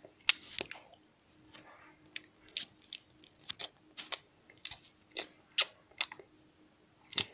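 Chewing and crunching noises made for toy pets eating: irregular crisp clicks about two or three a second, with a short lull about a second in.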